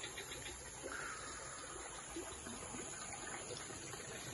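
Faint outdoor ambience by the water: a steady low hiss with a few small ticks.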